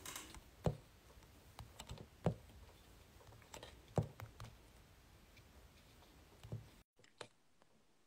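Faint, irregular clicks and taps, about a dozen spread over several seconds, over quiet room tone. The background cuts out abruptly for a moment about seven seconds in.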